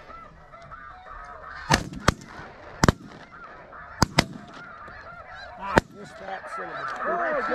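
Shotguns firing at a flock of snow geese: six shots over about four seconds, two of them in quick pairs. Snow geese calling overhead throughout, the honking swelling louder near the end.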